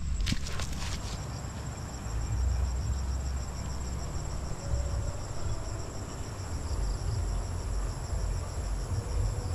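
Steady high-pitched insect chorus with an even, pulsing trill over a low rumble. In the first second, a couple of squelching steps of rubber boots in mud.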